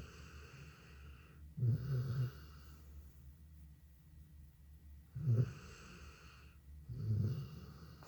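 Sleeping dog snoring: three snores a few seconds apart, each followed by a hissing breath.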